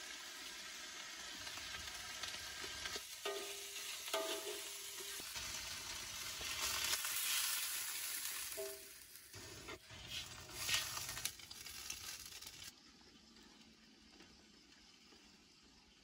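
Spice paste sizzling as it fries in a hot wok, with a metal spatula ringing against the pan a few times. About seven seconds in, water is poured into the wok and the sizzling grows louder and hissier, then dies down to a quiet simmer near the end.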